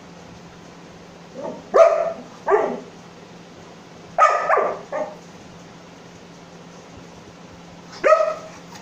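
Black Labrador retriever barking in short bursts: two barks about two seconds in, two or three more around four to five seconds in, and one more near the end.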